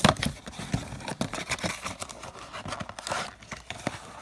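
Hands opening a cardboard trading-card blaster box and sliding the card packs out: a run of quick scrapes, rustles and clicks of cardboard and packaging, with a sharp click at the start.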